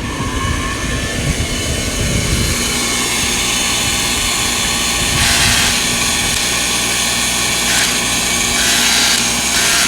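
High-voltage magnifying transmitter (Tesla-style coil) powered up and running on a test with its new saltwater bottle capacitor in the tank circuit: a loud, steady electrical noise with hum, briefly louder about five seconds in and again near the end. It runs properly, showing the transmitter is back in working order.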